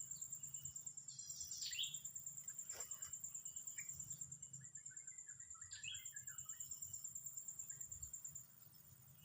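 An insect trilling steadily at a high pitch in fast even pulses, stopping abruptly about eight seconds in, with short scattered chirps of small birds over it.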